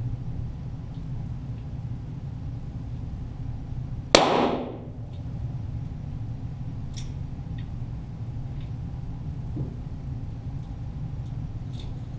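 A single .22 Walther GSP pistol shot heard from down by the target: one sharp crack about four seconds in with a short echoing tail, over a steady low hum.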